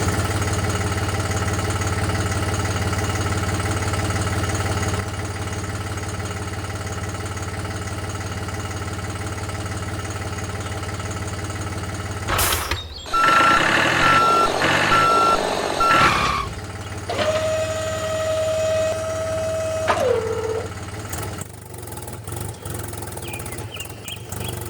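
DIY mini tractor's small engine running steadily. About halfway through, a click is followed by a run of short beeps like reversing beeps, then a long steady horn-like tone that drops in pitch as it ends.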